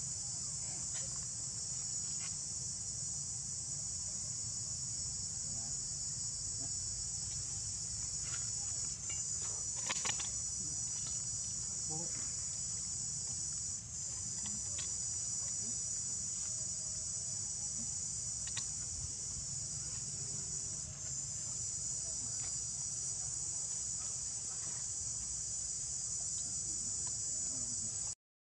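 Steady high-pitched chorus of insects, dipping briefly three times, over a low steady rumble. It cuts off suddenly near the end.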